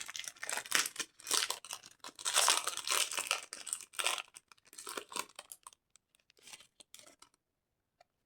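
Candy wrapper being crinkled and torn open in irregular rustling bursts that thin out and stop about seven seconds in.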